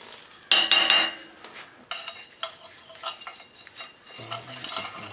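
Metal hand tools clattering and clinking against each other: a loud clatter about half a second in, then a run of lighter, sharp clinks.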